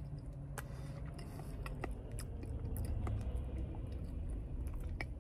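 Faint wet clicks and smacks of a mouth eating a spoonful of soft flan, over a low steady hum.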